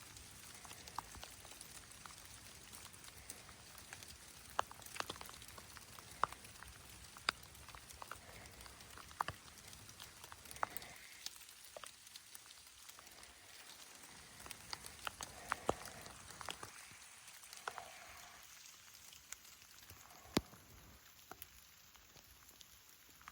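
Water drops falling in a light, irregular patter: scattered sharp ticks, a few a second, over a faint steady hiss.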